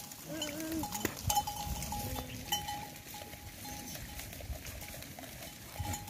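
Goats bleating in a browsing herd: one wavering bleat near the start and a short, lower one about two seconds in. A thin ringing tone repeats in short dashes throughout.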